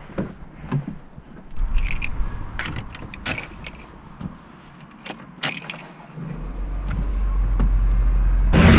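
Car door opening and keys jangling as the driver gets in and puts the key in the ignition, with scattered clicks and knocks. About six seconds in the engine starts and runs with a low steady rumble, and near the end a loud rushing noise comes in as the heater fan is switched on.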